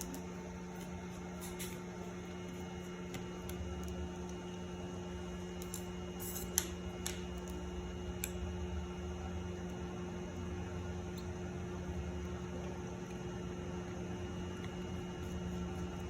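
Steady electrical mains hum, with a few small clicks, the sharpest about six and a half seconds in.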